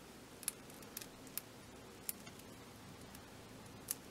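Faint handling of a plastic action figure: about five small, scattered clicks and taps as fingers bend and pose its bendable arm.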